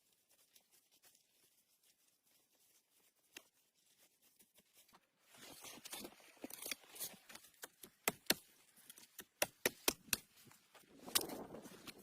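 Quiet for about five seconds, then rustling handling noises followed by a series of sharp, irregular clicks and snaps.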